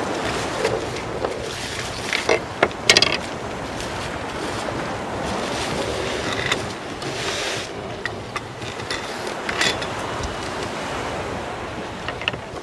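Wind buffeting the microphone over a steady wash of sea. A cluster of sharp clicks and rustles comes about two to three seconds in, with a few more later, as a fabric wind scoop and its rods and fittings are handled.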